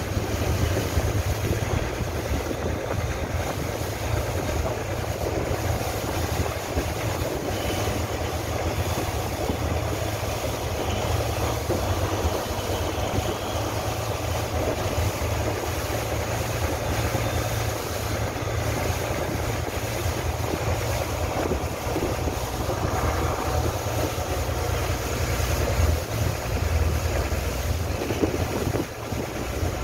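A boat's engine runs steadily as the boat moves along the river, a constant low hum under wind and water noise.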